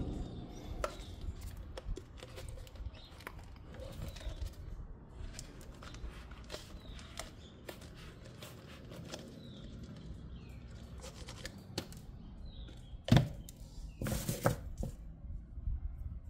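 Hand tools clicking and tapping on a car's rear suspension. There is one loud knock about thirteen seconds in, followed by a short burst of clatter. Birds chirp now and then in the background.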